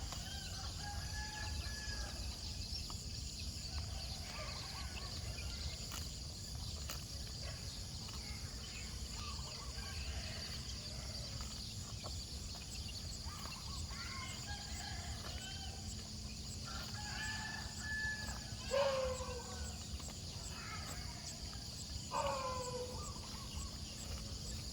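Birds calling: scattered short calls through the whole stretch over a steady low rumble, with two louder falling calls near the end.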